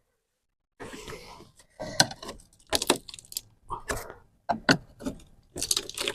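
Irregular clicks, knocks and scraping as a boat's window is pried and worked loose from its sealant, starting about a second in.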